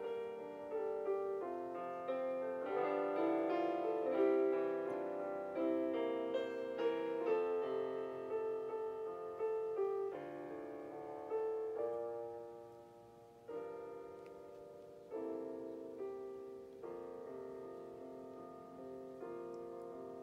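Background solo piano music: slow, gentle notes and chords struck and left to ring. About halfway through it thins out and softens to single chords every second or two.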